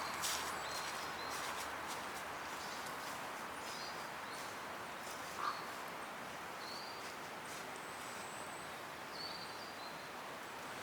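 Steady outdoor background noise with a few short, high bird chirps scattered throughout, a click near the start and a single knock about five and a half seconds in.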